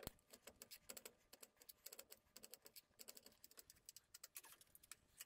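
Faint, quick, irregular taps of a small knife chopping garlic cloves on a wooden chopping board.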